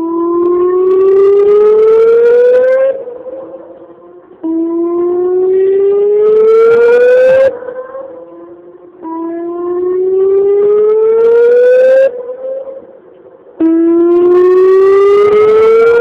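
Whelen 2905 electronic outdoor warning siren sounding its whoop tone: four loud rising sweeps, each lasting about three seconds and cutting off abruptly, repeating roughly every four and a half seconds with a fainter tone lingering in each gap.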